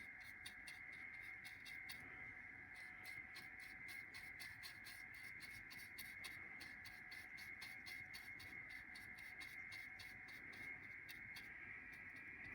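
Faint, rapid scratchy strokes of Permatex High Tack gasket sealant being spread over a fuel pump gasket with its applicator, over a faint steady high whine.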